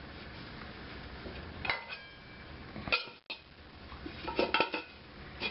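Stainless-steel pots and pans being moved and set down on an electric stovetop: a few separate metal knocks and clinks, one about a second and a half in that rings briefly, and a quick cluster of clinks about four and a half seconds in.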